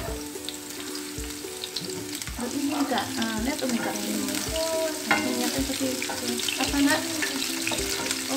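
Sliced shallots, garlic and red chillies sizzling as they sauté in hot oil and are stirred in the pan, over background music.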